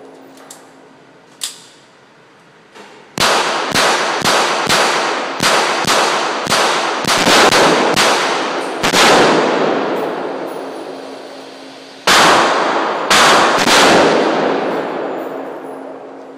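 Gunshots fired in quick succession, about a dozen over six seconds, then a pause and two or three more, each with a long echoing tail. A few fainter knocks come in the first three seconds.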